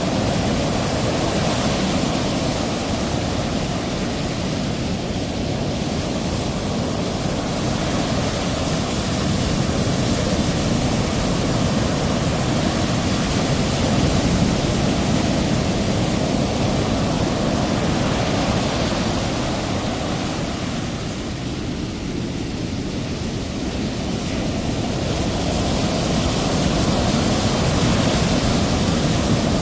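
Ocean surf: a steady rushing wash of waves that swells and eases slowly, dipping a little about three-quarters of the way through.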